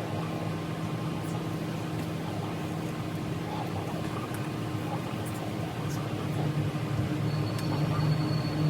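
A steady machine hum with a low drone and a background hiss, growing slightly louder near the end.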